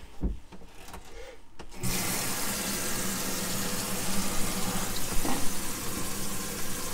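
RV bathroom sink faucet turned on about two seconds in, water then pouring steadily into the sink with the camper's water pump humming underneath. Bleach sanitizing solution is being flushed through the fresh water line.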